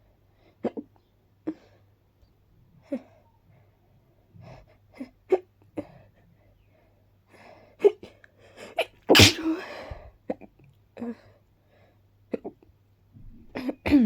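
A woman sneezing once, loudly, about nine seconds in, amid a string of short, sharp hiccups before and after: allergic sneezing brought on by pollen.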